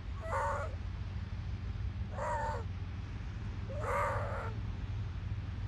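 Stranded seal pup calling: three short, wavering cries about two seconds apart, over a steady low rumble.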